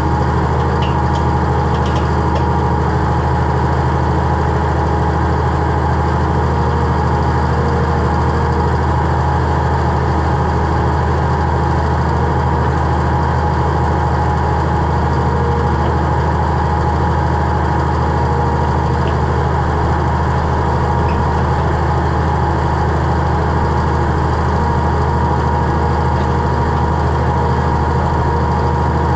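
Tractor engine running at a steady, unchanging speed, with a few faint ticks in the first couple of seconds.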